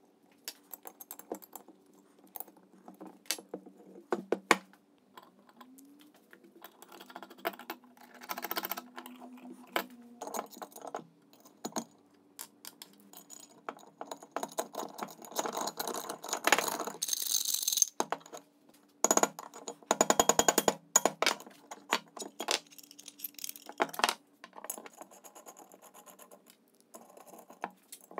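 Small metal parts of a cast-iron bench vise clinking, clicking and knocking as they are handled and fitted together. About halfway through come a few seconds of rough scraping strokes, and just after them a quick run of rapid clicks.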